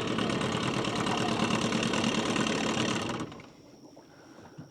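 Small boat's motor running steadily, then stopping abruptly about three seconds in.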